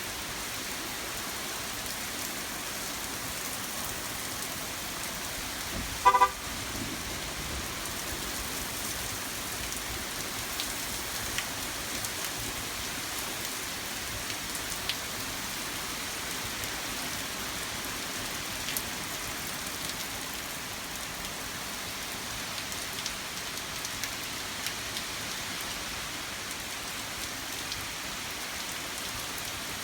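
Steady rain falling, with scattered drops ticking close by. About six seconds in, a car horn gives one short toot.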